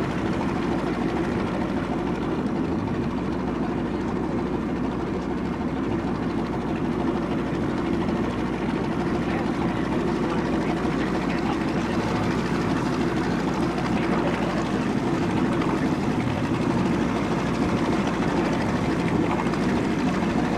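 Motorboat engine running steadily with a low, even drone, heard from inside the boat's cabin while under way.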